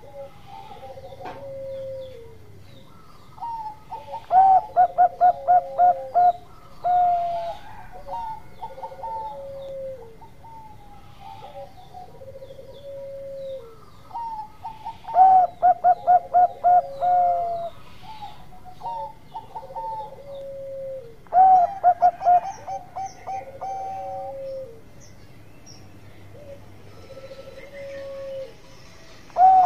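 Zebra dove (perkutut) cooing its song three times and starting again at the end. Each phrase is an opening note followed by a quick run of about half a dozen short staccato coos. Softer, lower coos repeat every couple of seconds between the phrases.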